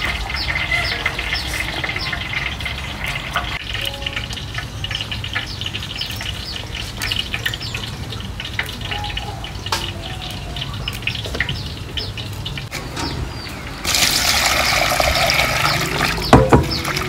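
Small birds chirping, repeated short falling notes a few a second, over a low steady background. About 14 s in, tap water starts gushing into a metal bowl of fresh herb leaves being washed, with a sharp knock against the bowl near the end.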